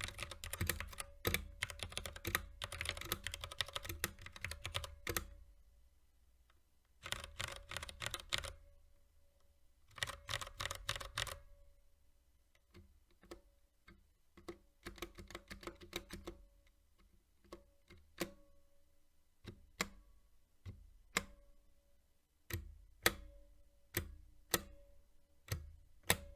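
Typing on a mechanical keyboard with TTC Gold V2 Brown tactile switches and PBT keycaps. A fast run of keystrokes lasts about five seconds, then come two short bursts, then slower, separate key presses, with several louder single strikes near the end.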